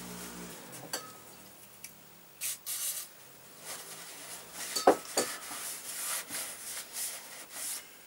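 Paper towel rubbing and scrubbing inside a Honda CX500's aluminium crankcase in irregular strokes, wiping off burnt oil residue loosened with carb cleaner. There is a sharp knock about five seconds in.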